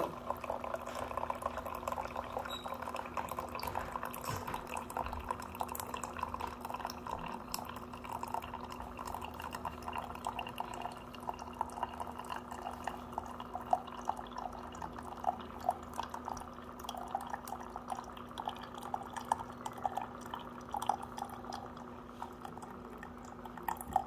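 Single-serve pod coffee maker brewing: a thin stream of coffee trickles and spatters into a plastic mug over a steady low hum from the machine.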